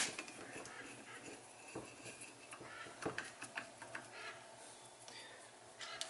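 Faint, scattered clicks and scrapes of a screwdriver tightening screws into an aluminium TBI throttle body during reassembly.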